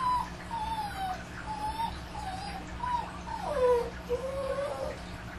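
Dogs whining and howling in a string of short, gliding cries. About three and a half seconds in, a longer falling howl overlaps another cry, then a drawn-out howl follows.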